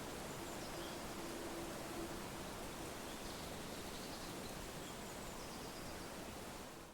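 Steady wind rustling through leaves, with a few faint high chirps, fading out right at the end.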